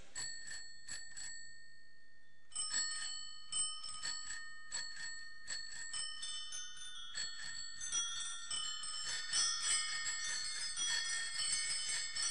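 Soft background music of tinkling bell-like chimes. A few struck notes ring out at first, then come thicker and busier toward the end.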